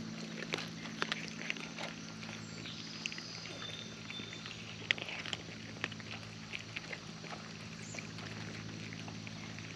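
Cats eating from a dish: scattered small clicks and smacks of licking and chewing, over a steady low hum.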